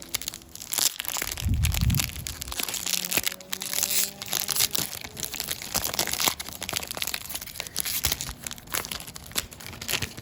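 Wrapper of a 2022 Series 2 baseball card pack being torn open and crinkled, a dense run of rapid crackles and rustles. A brief low rumble of wind on the microphone comes about one and a half seconds in.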